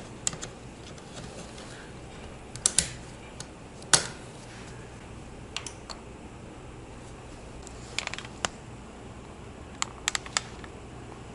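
Sharp clicks and knocks of hands working parts inside a small ITX computer case, coming in scattered little groups. The loudest is a single knock about four seconds in.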